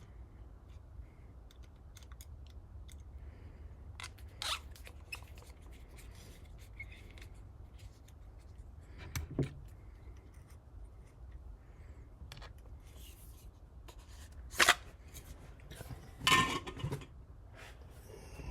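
Handling noise from lightsaber hilt parts: a few short metal clicks and scrapes spread out, the longest scrape near the end, as a sleeve is taken off the chassis and the next one fitted.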